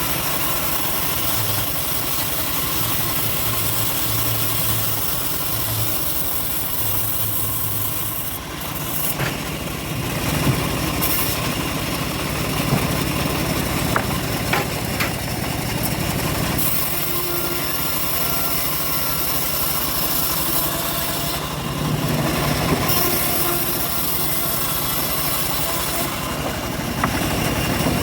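Engine-driven homemade bandsaw mill running steadily while its blade cuts through an old teak log, with a few sharp clicks partway through.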